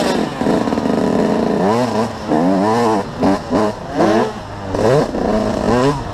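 Motocross bike engine revving up and down several times as the rider opens and shuts the throttle while riding, heard close from the rider's own bike.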